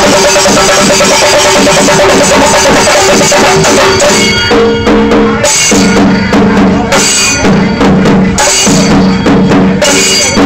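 Kerala chenda melam: several chenda drums beaten with sticks together with ilathalam hand cymbals. A fast, dense roll for about the first four seconds, then the beat breaks into short repeated phrases.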